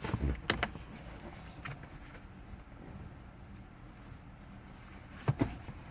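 A few sharp clicks and knocks of plastic dashboard trim being handled and fitted back: a cluster at the start, a lighter click, then two close knocks near the end.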